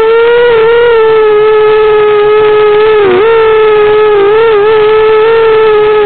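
Eachine Racer 250 quadcopter's motors whining at a steady pitch, dipping briefly about three seconds in and again a second later.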